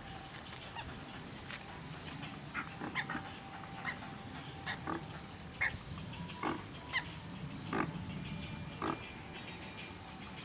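Great white pelican chick giving short, sharp calls, about a dozen scattered through the middle of the stretch, over a steady low hum.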